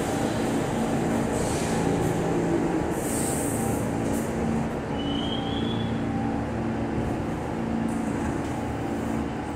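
R46 New York City subway train moving along an underground station platform: a steady rumble of wheels and traction motors, with a short high squeal about five seconds in.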